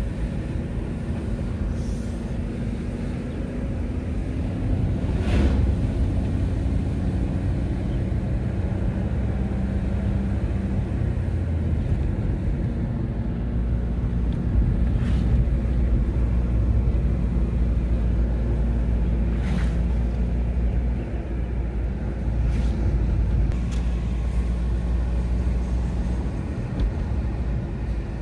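Car engine and tyre noise heard from inside the cabin while driving: a steady low rumble, with the engine's pitch shifting slightly as the car changes speed. A few brief knocks come through, about five in all.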